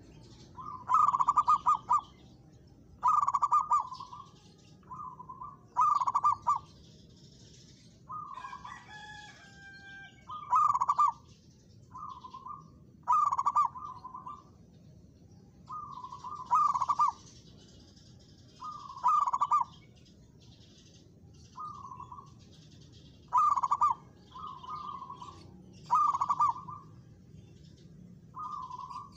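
Zebra dove (perkutut) cooing: short, rapidly pulsed phrases, a loud one every two to three seconds with fainter phrases in between, as in a dove answered by a rival.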